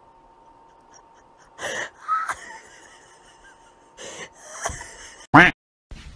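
A person making short, raspy heavy-metal growl sounds at a cat: five breathy bursts with pauses between them, the last one the loudest and cut off abruptly.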